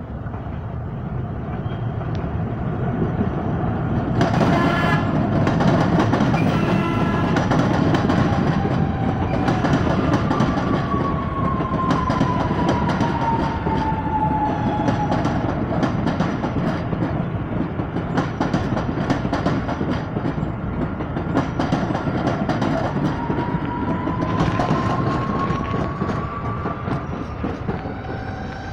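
SuperVia electric multiple-unit commuter train (units 4013/4014) passing on the line, its wheels rumbling and clicking over the rail joints, with a horn sounding about five seconds in. A motor whine glides down in pitch over several seconds mid-way and rises again near the end as the train pulls away.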